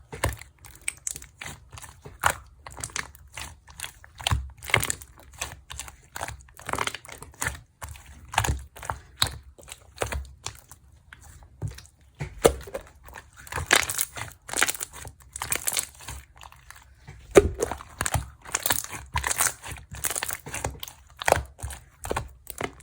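Close, irregular crinkling and crackling from something being handled, a quick run of short sharp clicks that thickens into denser clusters around the middle and again later on.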